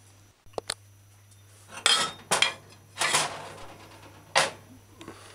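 A ceramic plate being handled and set down: two light clinks, then several louder knocks and short scrapes of dishware about a second apart.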